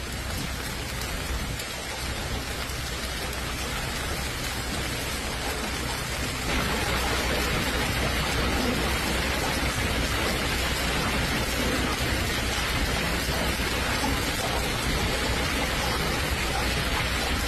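Hailstones pelting a paved road in a heavy hailstorm: a dense, steady clatter and hiss that grows louder about six and a half seconds in.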